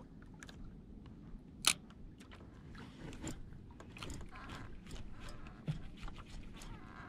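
Faint small clicks and scraping from a spinning reel being cranked and a light jigging rod worked by gloved hands, with one sharp click about a second and a half in.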